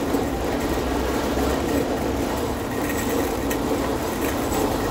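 Shopping cart being pushed across parking-lot asphalt, its wheels and wire basket giving a steady rolling rattle.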